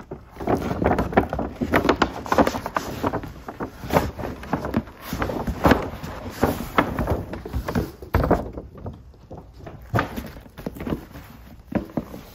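Stiff paper shopping bag crinkling and rustling as a cardboard shoebox is pulled out of it. Near the end come a few light knocks as the shoebox is handled and set down on a tile floor.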